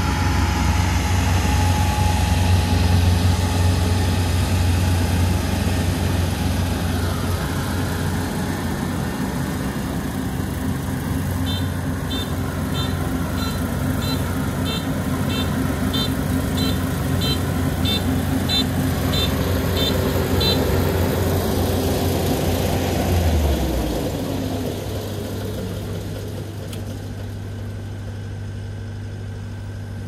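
Kubota ER 470 combine harvester's diesel engine running steadily while the machine manoeuvres, with a string of high beeps from the combine, about one and a half a second, for about nine seconds in the middle. Near the end the engine note drops and it runs lower and quieter.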